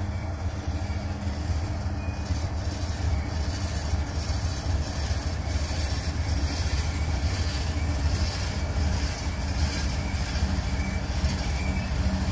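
CN diesel-electric freight locomotives rolling past close by: a steady low engine drone with rail and wheel noise over it.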